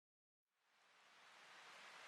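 Near silence: dead silence for about half a second, then a faint hiss that slowly grows.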